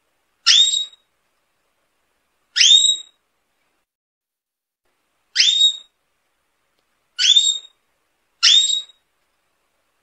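Canary giving a short rising whistled call note, five times at uneven gaps of one to three seconds, each call about half a second long and all alike.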